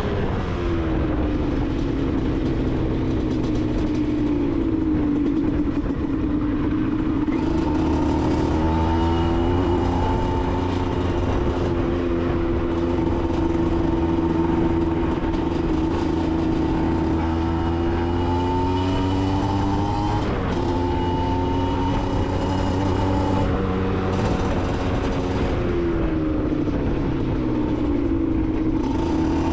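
Aprilia SX 125 single-cylinder two-stroke engine with an Arrow exhaust, running under way. Its pitch drops off at the start and holds steady for a long stretch. It dips a couple of times later and climbs again near the end.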